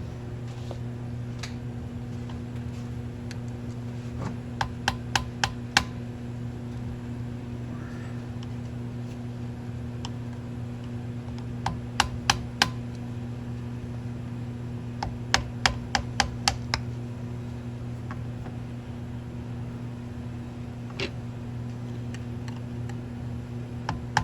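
Small sharp clicks in quick runs of four to seven, about three a second, from the parts of an ATC gas cap being worked apart by hand, over a steady electrical hum.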